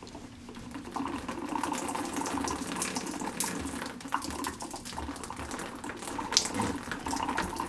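Water trickling out of a Delta shower valve as its cartridge is worked loose with pliers: the water left in the pipe above the valve is draining out. Small clicks and scrapes are heard throughout, from the pliers on the cartridge's plastic stem.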